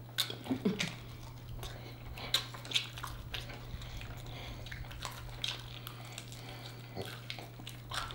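Close-miked eating of chicken wings: scattered small clicks and smacks of mouths and fingers as the meat is stripped from the bones, over a steady low hum.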